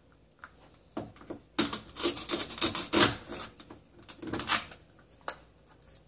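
Velcro (hook-and-loop) ripping apart as a toy knife cuts a velcro toy watermelon in half: a rasping tear of about a second and a half, then a shorter rip, with a few light knocks of the toy pieces.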